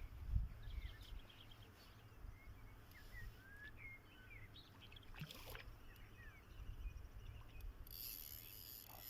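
Small birds chirping with short, sliding calls over a steady low rumble of outdoor ambience. There is a brief swish about five seconds in and a hiss near the end.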